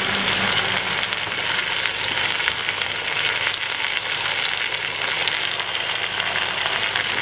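Beef steaks sizzling in hot fat in a saucepan: a steady frying hiss with fine crackling throughout.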